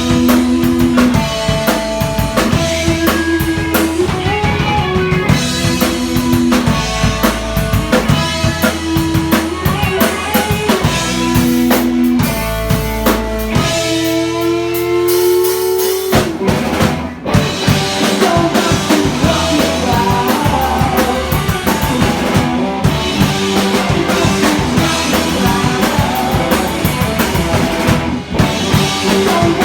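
Rock band playing live: a drum kit under held melodic notes, with one note sliding upward about fourteen seconds in and a short break near seventeen seconds before the band comes back in.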